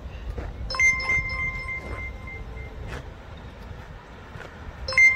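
Metal ringing like a struck bell: one clear ring about a second in that dies away over a second and a half, and a second ring just at the end.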